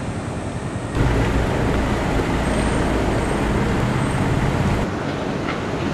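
Street traffic noise: a heavy motor vehicle's engine and tyre rumble, which comes in abruptly about a second in and drops back near the end.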